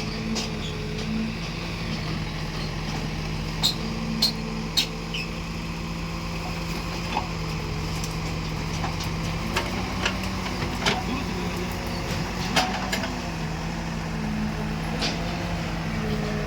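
Diesel engine of heavy earthmoving machinery running steadily, its pitch rising a little for a few seconds midway as if under load, with short sharp knocks and clanks now and then.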